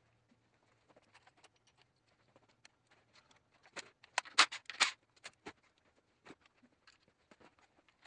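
Scattered metallic clicks and clinks of hand tools and a socket on an extension handled against an engine's connecting-rod caps, with a louder cluster of clinks about four to five seconds in.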